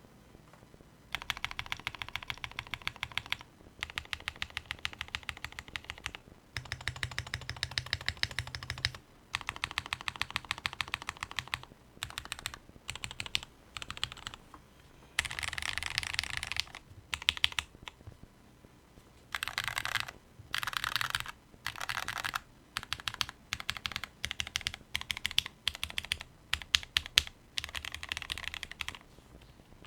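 Typing on an Akko Top 75 aluminium mechanical keyboard with lubed and filmed Cherry MX Black Clear Top linear switches on an FR4 plate, under Cherry-profile keycaps. The key presses come in runs of a second or two, broken by short pauses.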